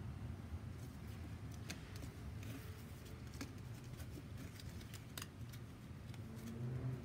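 Scattered light clicks and rustles of a cardboard hang tag on a leather cowboy boot being handled and cut off with scissors, over a low steady hum.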